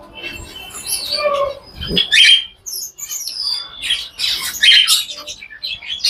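Caged finches chirping: many short, high, overlapping calls, with a few quick high sliding whistles about three seconds in.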